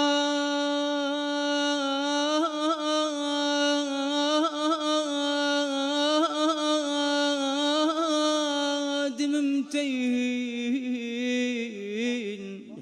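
A solo man's voice singing a line of Iraqi folk poetry, holding one long drawn-out note decorated with small quavering trills. About nine seconds in the note steps lower, and it wavers before fading near the end.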